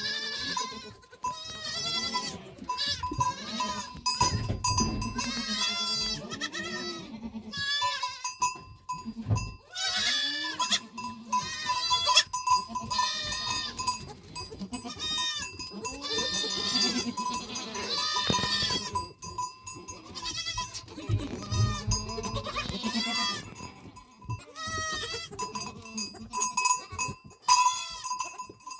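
A herd of goats bleating, many calls overlapping one after another, with livestock bells clinking and ringing steadily through it.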